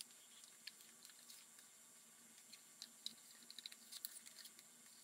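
Near silence: room tone with faint scattered light clicks, more of them about three and a half to four and a half seconds in, from a small plastic cup being handled in nitrile-gloved hands.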